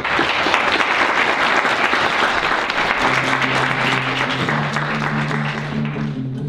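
An audience applauding, beginning at once and dying away near the end. Music with held guitar-like notes comes in about halfway through.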